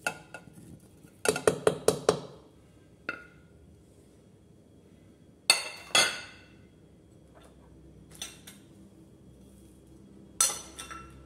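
Kitchen utensils knocking and clinking against a stainless steel pressure cooker pot: a quick run of about five taps, then two louder knocks a moment apart, and a few more taps near the end.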